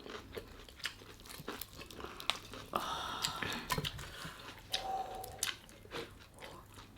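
Close-up chewing and biting of crispy fried chicken (Jollibee Chickenjoy), with scattered crunches, crackles and wet mouth sounds.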